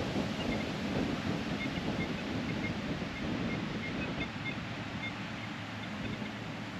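Wind rushing over the microphone, a steady noise.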